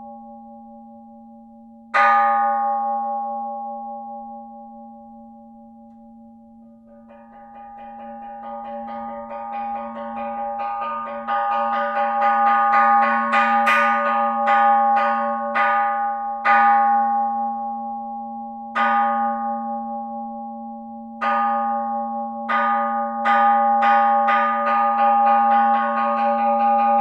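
A bell struck once and ringing down, then struck again and again in quickening strokes that build into a continuous ringing roll, with several louder single strikes in the second half. A steady low hum runs beneath it.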